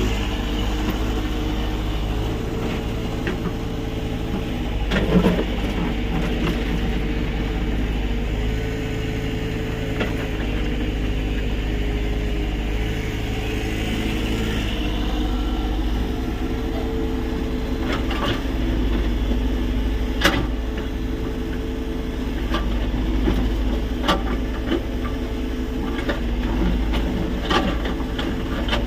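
Tata Hitachi EX70 excavator's diesel engine running steadily while it works, with a few sharp knocks scattered through, the loudest about five seconds in and another around twenty seconds.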